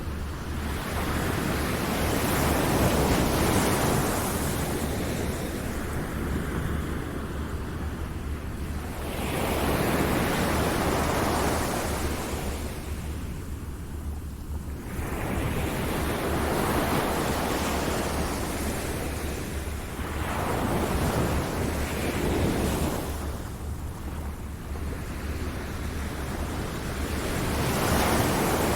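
Ocean waves surging and receding, a steady wash of surf that swells and fades about every six seconds over a constant low rumble.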